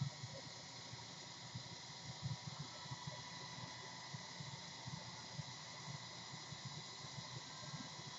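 Faint, irregular rubbing and soft knocks of fine 1500-grit sandpaper worked by hand over a lacquered ceramic piece, under a steady background hiss.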